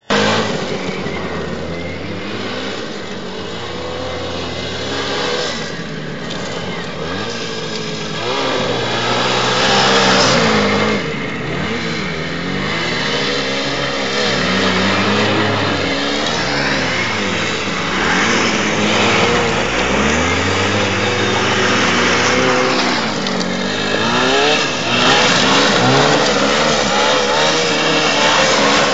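Two-stroke motorcycle engine revved hard, up and down over and over, while the rear tyre spins in loose gravel during burnouts and donuts.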